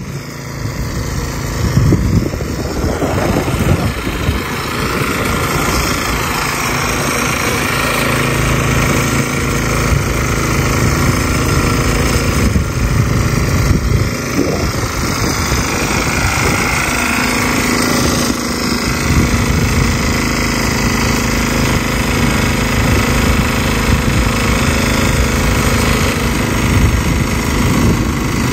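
Engine-driven irrigation pump running steadily at full throttle, pumping well water into a rice paddy.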